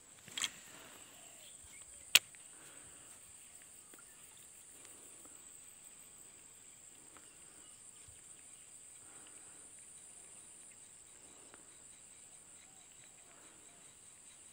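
A steady high-pitched insect drone, with two sharp clicks in the first couple of seconds.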